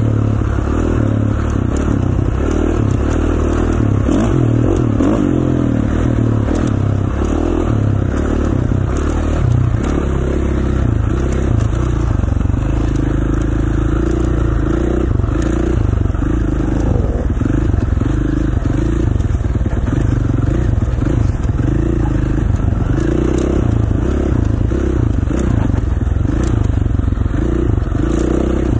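Dirt bike engine running while riding, its pitch shifting up and down with the throttle, with wind rush over the top.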